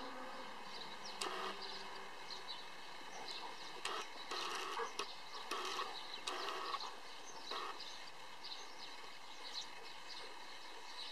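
Briards play-fighting on grass: short rough scuffling and breathing noises, bunched together between about four and eight seconds in, with birds chirping in the background.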